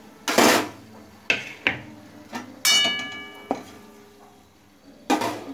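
Metal kitchen utensils knocking and clattering against a metal wok, a series of separate clanks, one about two and a half seconds in ringing on with a clear metallic tone.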